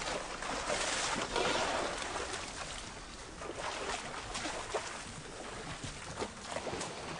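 African elephant breathing and blowing through its trunk at close range: a few loud, breathy whooshes in the first two seconds, then softer rustling with small clicks.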